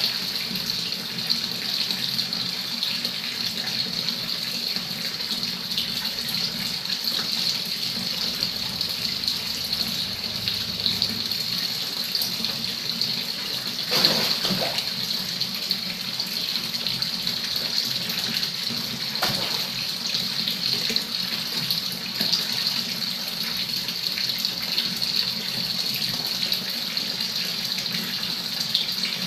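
Water pouring steadily into a tiled fish pond, like a running tap, with a brief louder splash about halfway through.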